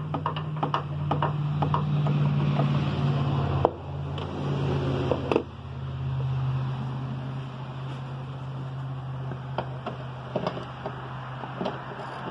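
Ratchet and 15 mm socket clicking irregularly as the wiper arm nut is backed off, with a few sharp knocks in the first five seconds or so, over a steady low hum.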